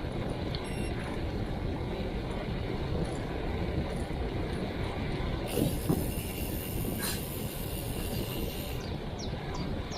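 Steady rumbling noise of a moving vehicle. A brighter hiss joins it from about halfway through until near the end, with a couple of faint knocks around six seconds in.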